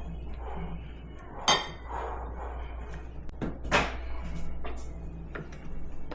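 Kitchen handling sounds: two sharp knocks, about a second and a half in and again near four seconds, with lighter clicks and scuffing in between, over a low steady hum.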